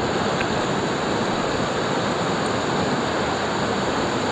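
River water rushing, a steady even flow with no breaks.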